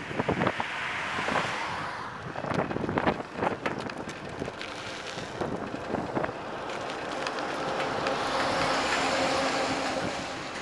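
A car passes close by in the first two seconds, its tyre and road noise swelling and fading. Then come scattered clicks and rattles as the bicycle rolls over rough pavement, and near the end another broad swell of road noise.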